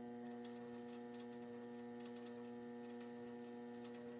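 Steady electric hum of a potter's wheel motor running, with faint irregular ticks over it.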